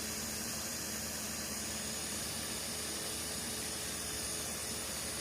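Ronson Tech Torch Model 8008 butane torch burning with its hot-air blower tip fitted: a constant hiss of the flame at an even level.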